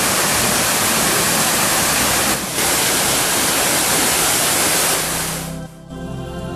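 Water splashing loudly from a large fountain, pouring from its raised bowl into the basin, with a brief dip about two and a half seconds in. The splashing cuts off about five and a half seconds in, and calm new-age background music takes over.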